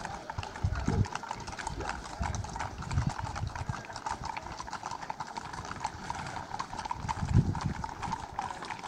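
Many horses' hooves clip-clopping on a paved road as a line of ridden horses walks past, a dense, uneven patter of hoofbeats. A few low thumps sound over it, the loudest about three-quarters of the way through.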